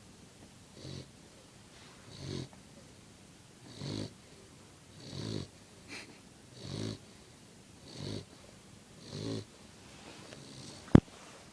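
Yellow Labrador retriever puppy snoring in its sleep: seven even snores about one and a half seconds apart. A single sharp click near the end.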